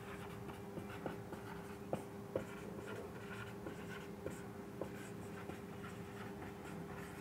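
Marker pen writing on a whiteboard: faint scratchy strokes and small taps, over a steady low hum.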